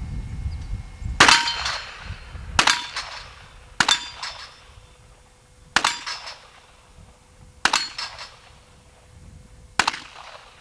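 .38 revolver fired six times at an uneven pace, one to two seconds apart. Each shot is a sharp crack followed by a short ringing.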